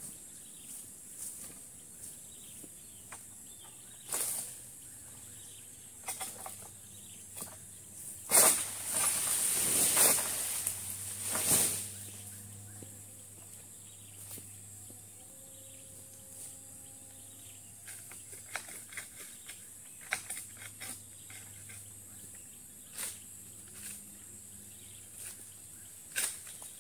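Oil-palm harvesting with a long-pole sickle: scattered clicks, knocks and scrapes of the pole and blade working against the palm crown, with a loud rustling crash lasting about four seconds around the middle as cut palm material comes down through the leaves.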